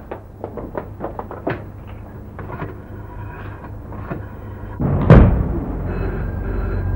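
A quick, irregular run of light clicks and knocks, then one loud thud about five seconds in.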